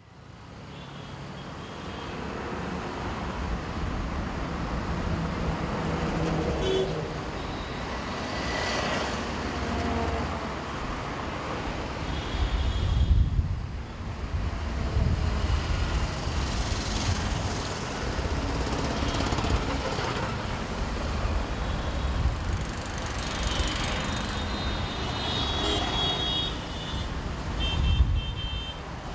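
Busy city road traffic: trucks, cars, motorcycles and auto-rickshaws passing with a steady rumble of engines and tyres that swells as each vehicle goes by, with short horn toots now and then. The sound fades in at the start.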